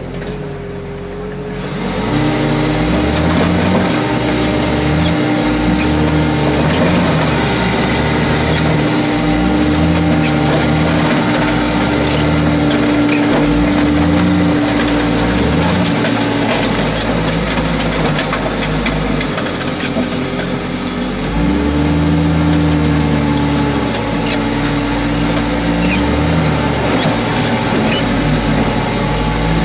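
Engine of a hydraulic car crusher running under load as the press flattens stacked cars, with a steady hum over a wavering, labouring engine note and scattered cracks of crumpling metal. The engine picks up about two seconds in, eases off partway through and picks up again around two-thirds of the way.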